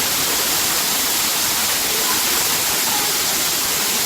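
Waterfall: water pouring and splashing in a steady rush.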